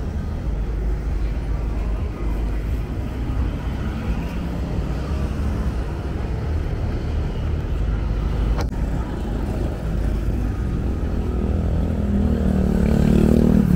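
Street traffic rumbling steadily. A brief click comes about two thirds of the way in, and a passing vehicle's engine swells to the loudest point near the end.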